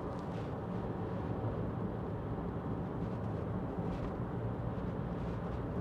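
Road and engine noise inside the cabin of a 2016 Mitsubishi Shogun 3.2 DI-D turbo-diesel on the move: a steady low hum over tyre rumble.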